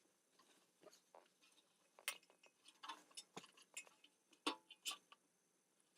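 Faint, irregular clicks and taps of small objects being handled, a dozen or so scattered sharp ticks.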